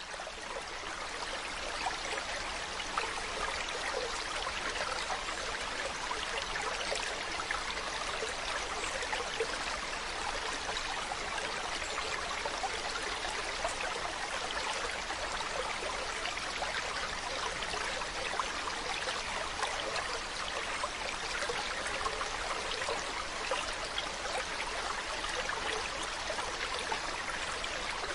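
Water flowing steadily, an even rushing splash with fine bubbling flickers and no change in level.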